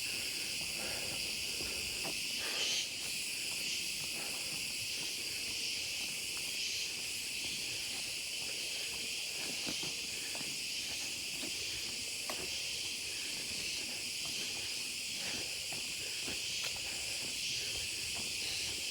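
Steady, high-pitched chorus of insects shrilling in the forest, with faint scattered knocks and rustles underneath.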